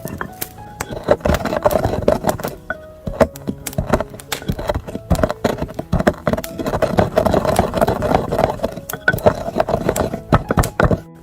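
Rapid, irregular knocks and taps of food being prepared, likely a knife working on a board, louder than the background music that plays under them.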